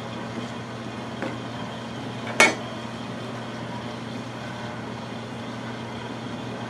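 Bread dough being cut with a metal scraper and shaped by hand on a wooden table, with one sharp knock about two and a half seconds in, over a steady low hum.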